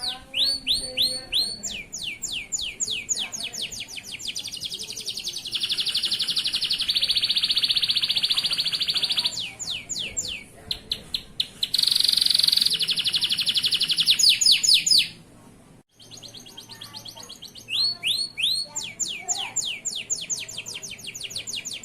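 Male canary singing: strings of quick downward-sweeping whistled notes, with two long, fast rolling trills in the middle. The song stops abruptly for about half a second shortly after the second trill, then the sweeping notes resume.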